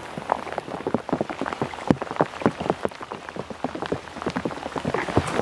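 Rain falling, with many irregular drops tapping close by on a wet waterproof raincoat.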